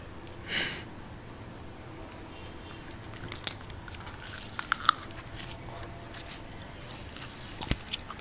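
Small plastic jelly cups being handled and their film lids peeled off: a short tearing rasp about half a second in, then crinkling plastic and many sharp clicks, with mouth sounds of eating the jelly.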